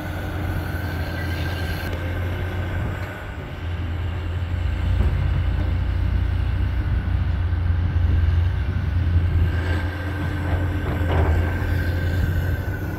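A steady low rumble from an earthworks site, with excavators and dump trucks working at a distance. It grows louder about four seconds in.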